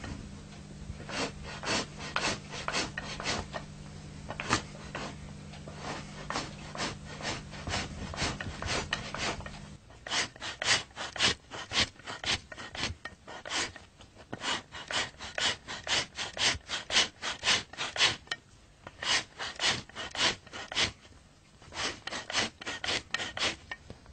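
A sheepskin hide being scraped by hand in quick, rhythmic rasping strokes, about three a second, with a couple of short pauses. A low steady hum underneath stops about ten seconds in.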